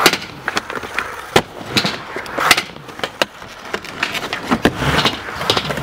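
Skateboard on 3D-printed wheels rolling over concrete, with a run of sharp clacks from the board and trucks. The loudest clacks come right at the start and about a second and a half in.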